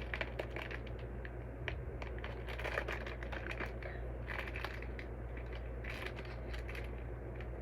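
Crinkling plastic and light irregular clicks of handling, from a squishy toy and its plastic packaging being handled, over a low steady hum.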